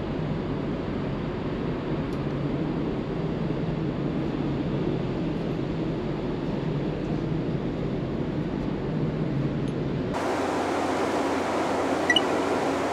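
Steady low drone of a large passenger ferry under way, heard from inside the ship. About ten seconds in it changes abruptly to a brighter, hissier rushing noise, with two faint clicks near the end.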